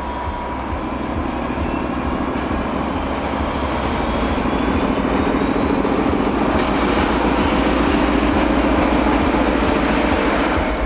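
ČD class 754 diesel-electric locomotive pulling a passenger train away from the platform, the engine and rolling coaches growing steadily louder. A thin whine rises slowly in pitch over the second half.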